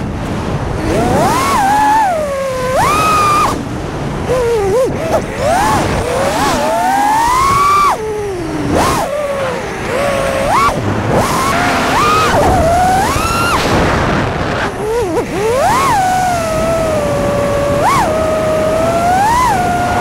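Brushless motors and propellers of a 5-inch FPV quad (T-motor Velox 2550kv motors on 4S) whining, the pitch rising sharply and falling back many times with throttle punches and turns. Wind rushes over the onboard camera's microphone.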